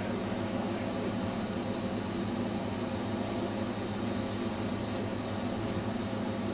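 Steady low hum with an even hiss: room tone, with no distinct events.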